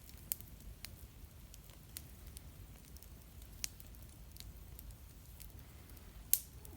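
Wood fire crackling: sparse, irregular sharp pops and snaps over a low steady rumble, with one louder pop near the end.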